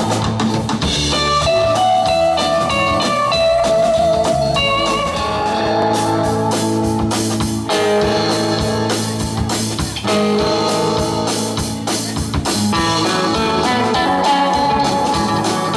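Live rock and roll band playing an instrumental passage: an electric guitar plays quick runs of notes over bass and drums.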